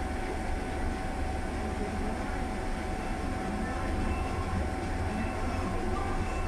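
Steady low rumble of a passenger bus's engine and running gear heard from inside the cabin, with a thin steady whine held over it.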